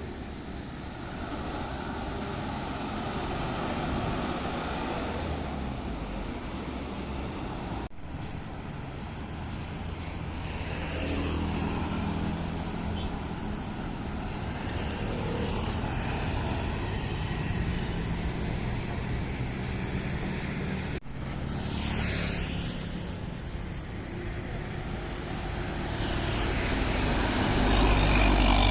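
Road traffic passing: engines and tyres of vehicles going by in a steady rush, growing louder near the end. The sound breaks off abruptly twice, about eight and twenty-one seconds in.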